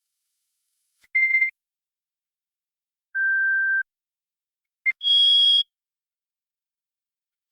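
Three short electronic beeps, each at a different pitch: a middle one about a second in, a longer lower one around three seconds, and a higher, brighter one near five seconds just after a tiny click, with dead silence between them.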